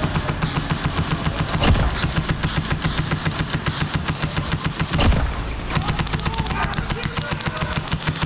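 Airsoft rifles firing rapid full-auto strings of shots, a fast even clatter that pauses briefly a little past the middle. There are louder single cracks about two seconds in and again about five seconds in.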